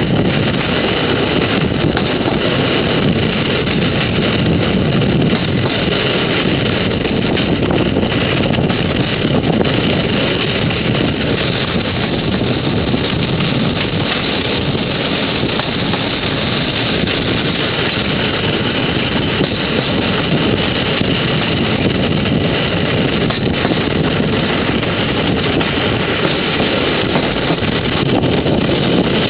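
Steady running noise of a moving train with wind on the microphone, an even rumble and rush that holds throughout.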